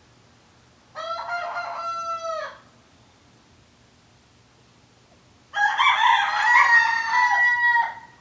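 Rooster crowing twice: a shorter crow about a second in, then a louder, longer cock-a-doodle-doo near the end.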